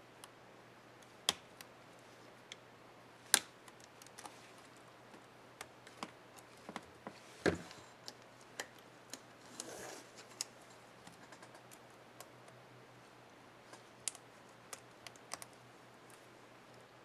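Irregular sharp plastic clicks and snaps from the Shift keycap and its clips on an HP Stream 11 laptop keyboard being fitted and pressed, with a short rustle partway through.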